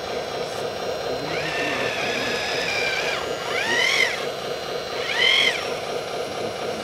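Remote-controlled model wheel loader working its bucket: a steady motor hum with an electric whine that holds for a couple of seconds, then rises and falls twice in short swells.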